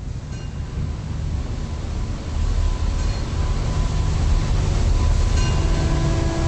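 Heavy, low rumbling of thrashing water that swells about two seconds in, with a ship's bell ringing three times, about two and a half seconds apart. A low horn starts sounding near the end.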